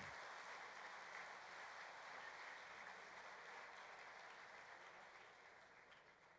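Faint audience applause, slowly dying away and ending near the close.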